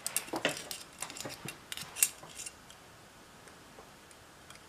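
Tinplate parts of a Schuco Examico 4001 toy car clicking and scraping together by hand as the firewall is fitted onto the chassis: a quick run of light metallic clicks over the first couple of seconds, the sharpest about two seconds in.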